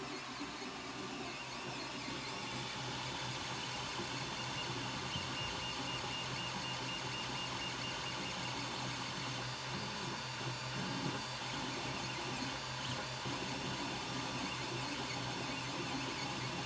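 Creality Ender 3 Pro 3D printer running through the last layers of a print: a steady whirr of its fans and stepper motors as the print head moves, with a thin high tone coming and going.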